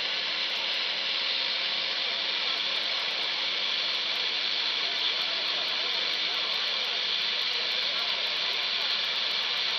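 Quansheng UV-K5 handheld transceiver's speaker giving out steady receiver static, tuned into the 27 MHz CB band. It is an even hiss with no voice heard through it: no signal is being copied.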